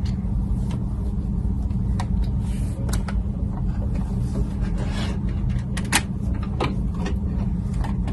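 Scattered light clicks and knocks of plastic parts being handled while a humidifier is set up and switched on, over a steady low hum.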